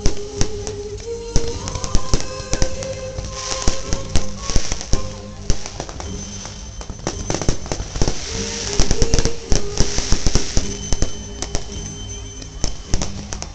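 A fireworks display: many sharp bangs and crackling bursts of shells going off in quick succession, over music with held notes.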